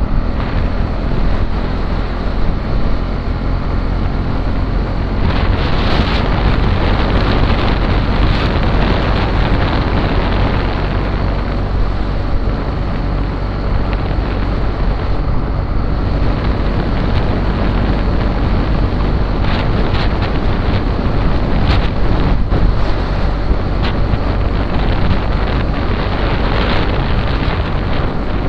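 Motorcycle running at a steady cruising speed, with wind buffeting the microphone and a steady low engine hum under the rush of air.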